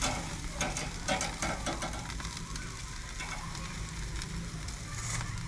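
Chicken sizzling over glowing charcoal on a barrel grill, with metal tongs clicking against the grate as pieces are moved during the first couple of seconds.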